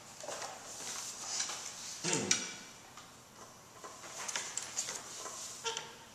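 Faint clicks, taps and rustling of a person settling in at a grand piano before playing, with a brief sound falling in pitch about two seconds in.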